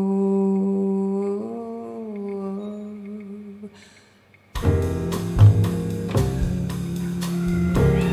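A woman's voice holds one long vocal note with no backing, stepping up slightly about a second and a half in, then fading away. After a short pause, a jazz trio of piano, double bass and drums comes in together with the voice about four and a half seconds in.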